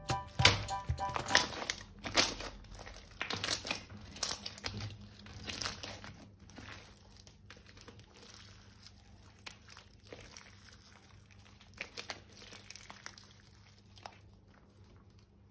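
Clear slime packed with beads being squeezed, kneaded and stretched by hand, giving irregular crackles and clicks. They come thick and loud in the first half and thin out toward the end.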